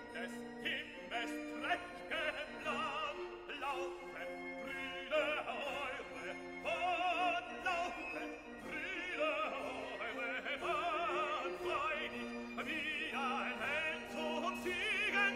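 Background classical music: an operatic voice singing held notes with wide vibrato over steady lower accompanying notes.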